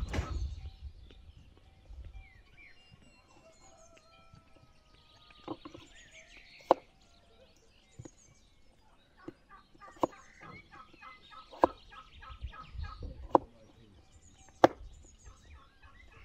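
Domestic fowl calling in quick runs of repeated notes, with a knife tapping sharply on a wooden cutting board about five times as potatoes are cut.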